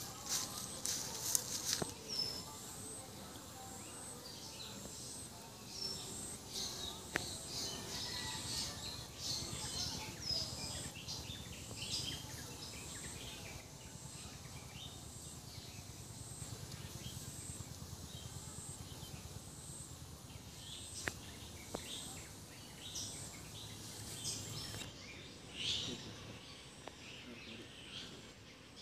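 Outdoor ambience around an open hive: birds chirping here and there over a steady low hum of honeybees, with a few faint clicks.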